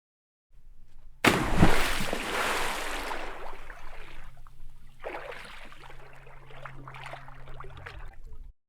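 Water drops splashing into a bowl: a sudden loud splash about a second in that fades out over a few seconds, a second smaller splash about five seconds in, then light drips and sloshing over a low hum. It cuts off abruptly just before the end.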